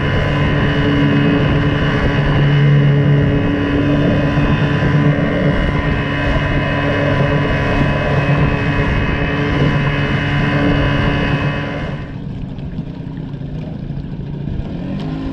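Small boat's outboard motor running steadily at speed, with wind and water rushing past the hull. About twelve seconds in it cuts off abruptly to a quieter engine sound, whose pitch rises near the end.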